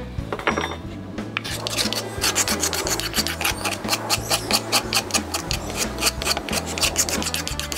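Steel pocket-knife blade scraped rapidly back and forth along the edge of a pine board, about three to four strokes a second, starting about a second and a half in. The edge is being dulled on purpose so it will no longer cut paper.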